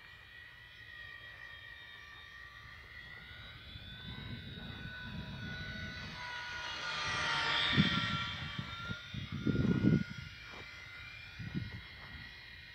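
RC model C-130 Hercules making a low flypast: the whine of its propellers grows louder as it approaches and drops in pitch as it passes about eight seconds in. A few short low rumbles buffet the microphone around the pass, the loudest just after it.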